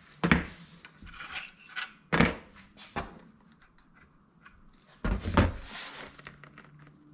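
Long bolts and metal vacuum-pump parts being handled and set down: sharp knocks and clinks, the loudest about a quarter second in, around two seconds in and a cluster around five seconds, with lighter rattling in between.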